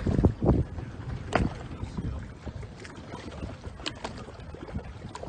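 Handling noise aboard a small fishing boat on the water: a low rumble with several knocks and thumps in the first second and a half, then a few sharp clicks.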